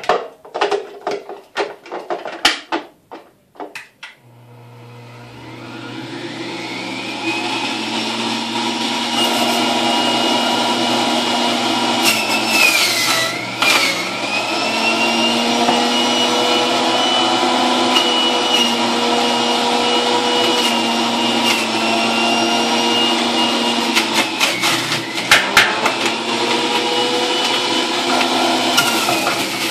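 A few clatters of juicer parts, then an electric centrifugal juicer's motor spins up and runs with a steady whine. Its pitch sags and recovers twice as produce is pushed down the feed chute and loads it, the second time with some knocks near the end.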